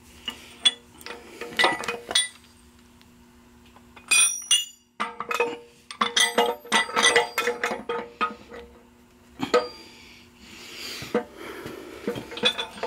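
Steel transmission gears and shaft clinking and knocking against each other and the case as the main shaft gear cluster is worked into a Ford 4000 tractor's five-speed transmission; irregular sharp metal clinks that ring briefly, thickest in the middle of the stretch.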